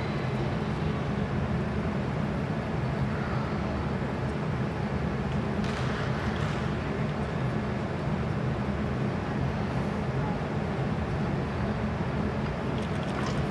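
Steady low background hum of a large indoor sports hall, unchanging, with a faint brief rustle about six seconds in.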